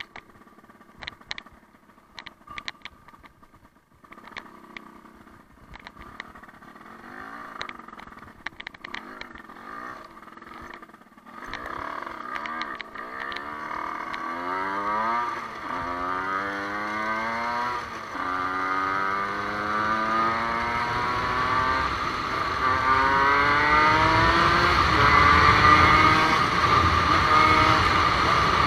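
Motorcycle engine heard from the bike: quiet at first with scattered clicks, then about eleven seconds in it opens up and accelerates. Its pitch rises and drops back several times as it shifts up through the gears, getting steadily louder.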